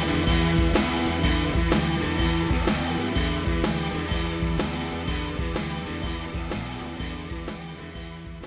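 Rock background music with guitar and a steady drum beat, fading out gradually toward the end.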